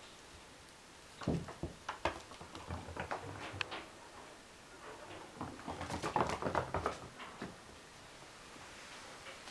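Kittens' paws tapping and thudding on a wooden floor as they run and tussle: a scatter of quick taps and knocks, then a denser flurry about five to seven seconds in.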